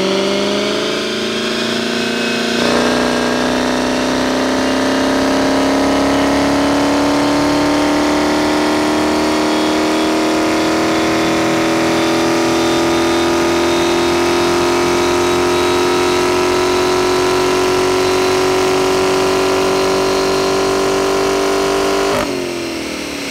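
Dodge Charger Widebody's V8 making a dyno pull on a roller dyno. The engine note steps up a gear about two and a half seconds in, then climbs steadily in pitch for about twenty seconds before the throttle closes near the end.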